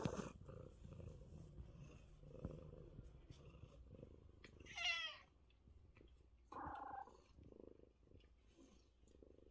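Domestic tabby cat purring softly, then meowing once loudly about five seconds in, followed by a second, shorter and lower meow a moment later.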